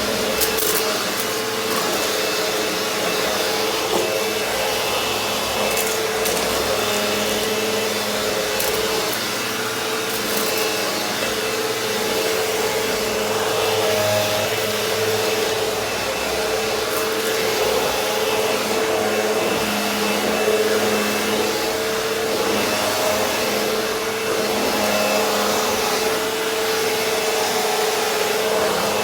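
Eureka The Boss Victory upright vacuum running steadily as it picks up dirt from a floor, its motor holding a steady pitch, with a few brief crackles of debris going up the machine.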